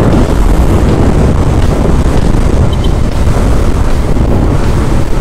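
Loud, steady wind buffeting on the camera microphone of a Yamaha Mio Aerox scooter riding at speed, a rumbling rush strongest in the low end.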